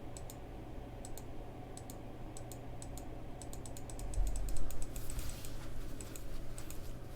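Computer keyboard keys and mouse being clicked in irregular taps, with a quicker run of clicks about three and a half seconds in. A dull low thump comes a little after four seconds.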